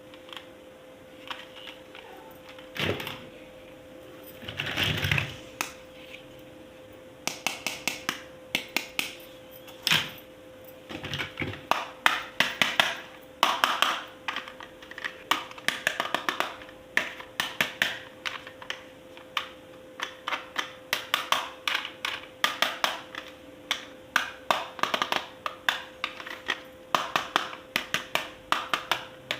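Plastic toy parts being handled, giving quick irregular clicks and taps. They are sparse at first, with a couple of short rustles, and come thick and fast from about seven seconds in, over a steady faint hum.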